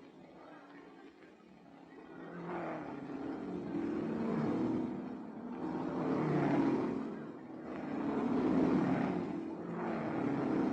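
Racing car engines revving as cars pass by, swelling and fading about three times.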